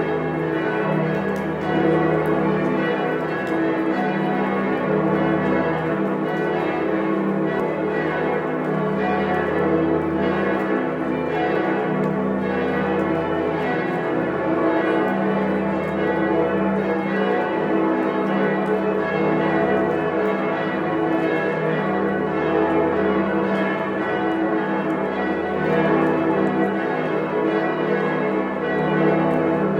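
Several church bells ringing together in a continuous, overlapping peal. Deep hum from the largest bells swells and fades every few seconds beneath the denser ringing of the higher bells.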